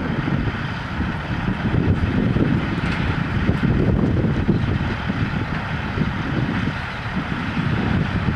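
Heavy diesel engine running steadily, with wind buffeting the microphone.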